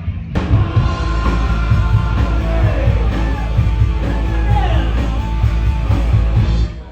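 Rock music with singing, guitar and a steady drum beat, cutting in abruptly just after the start.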